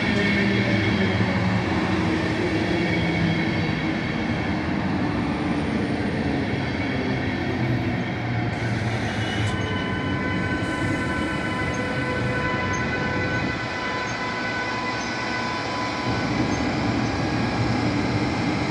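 Intercity passenger coaches rolling slowly past on the rails as the train pulls into the station, followed by a DB Class 101 electric locomotive. From about halfway through, a steady high whine of several tones rides over the rolling noise as the locomotive draws near.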